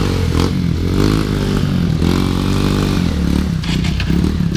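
Honda CRF150L's single-cylinder four-stroke engine running, its engine speed rising and falling as the bike is ridden over rocks. Clattering and scraping of the bike over the stones, most of it near the end.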